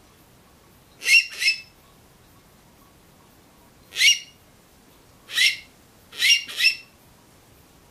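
Handmade aluminium rock cavy (mocó) call blown by mouth, imitating the animal's call: six short, shrill squeaking whistles, as a pair, two single calls and another pair.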